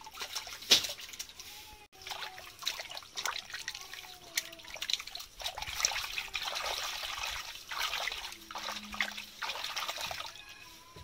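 Small river fish being washed by hand in a steel pot of water, with splashing and sloshing as the fingers rub through them. The loudest splash comes about a second in, as the fish are tipped in from a basket.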